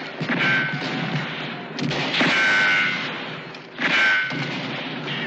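Battle sound effects from a war film: gunfire and bullet strikes, with three loud bursts about a second and a half to two seconds apart, several carrying a short ringing tone.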